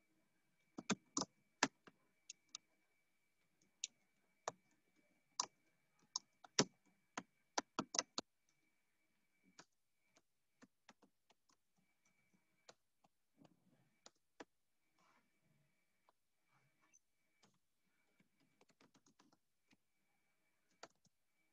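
Typing on a computer keyboard: irregular key clicks, quick and fairly loud for the first eight seconds or so, then sparse and faint.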